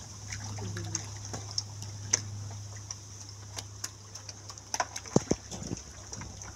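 Irregular wet clicks and slaps from a heap of live catfish squirming in shallow muddy water as they are grabbed by hand, over a steady high hiss.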